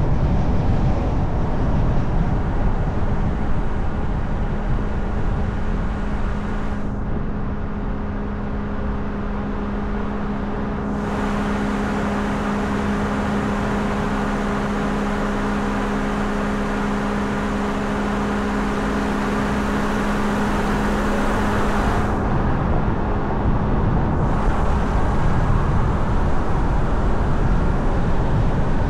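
Car driving along the road, heard from a camera mounted on the hood with wind reduction on: a dense low rumble of road, tyre and wind noise, with a steady low hum from a few seconds in until about two-thirds through.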